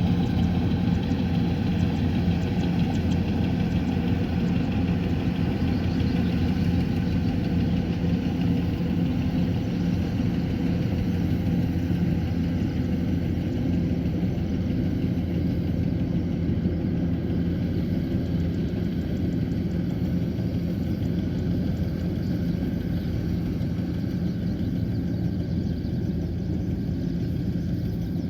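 Kubota combine harvester's diesel engine running steadily with an even, unchanging hum.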